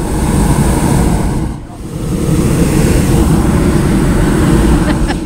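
Hot-air balloon's propane burner firing overhead in two long blasts, with a short break about a second and a half in, cutting off near the end.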